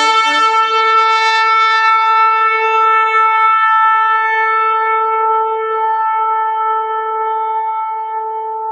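Shofar blown in one long, steady held blast, its level easing slowly toward the end.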